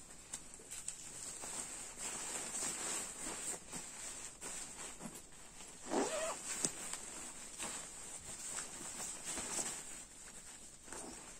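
Rustling and swishing of a goose-down sleeping bag's nylon and polyester shell fabric as it is handled, in irregular swishes with a louder one about six seconds in.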